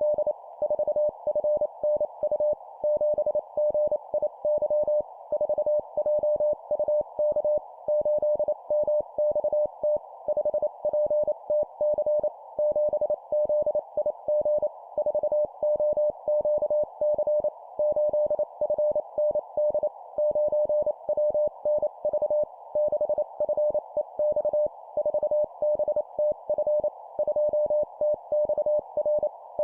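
Morse code (CW) sent as a single steady tone keyed on and off at 25 words per minute, in four-character groups of a number followed by three letters, with short pauses between groups.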